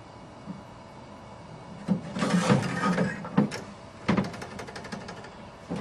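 Metal clunking and scraping as a lawn tractor's Kawasaki engine is worked free and lifted out of the steel frame: a burst of scraping and clatter about two seconds in, then a few sharp knocks and a run of small rattling clicks, with another clunk at the very end.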